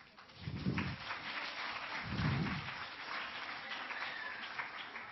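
Audience of children applauding, a dense patter of clapping that eases off near the end, with two dull low thumps about half a second and two seconds in.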